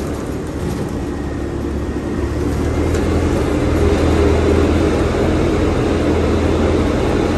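Parking-lot tram running and rolling along, heard from aboard: a steady low engine drone that grows a little louder about three seconds in.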